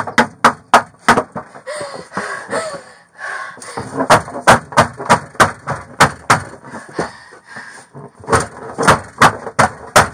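A rapid, irregular series of loud bangs from a woman kicking and striking the inside of a police car's rear compartment, with her voice breaking in between.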